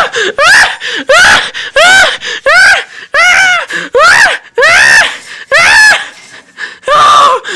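A high-pitched voice screaming over and over, about one and a half shrieks a second, each rising and then falling in pitch.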